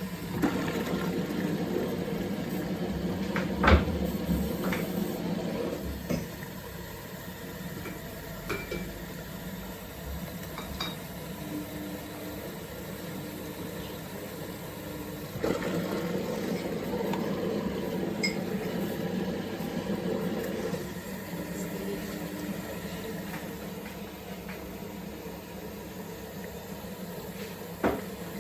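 Samsung WF1700WRW front-loading washing machine in its rinse stage, over a steady low hum: the drum turns with water sloshing for several seconds, pauses, then turns again about halfway through. A sharp knock comes about four seconds in.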